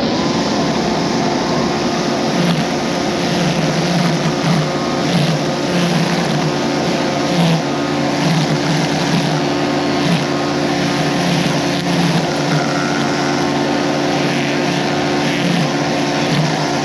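Echo eForce 56-volt battery-powered lawn tool running steadily at full speed: an electric motor whine with several steady tones over a dense rushing noise.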